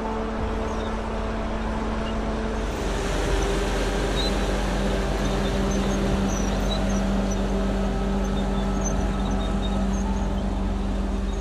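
Heavy machine's engine running steadily under load, its tone dropping slightly about three seconds in.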